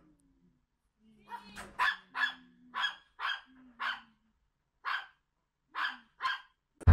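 Large black dog barking excitedly while it jumps up on a person in greeting: about ten short barks, some in quick pairs, over roughly five seconds.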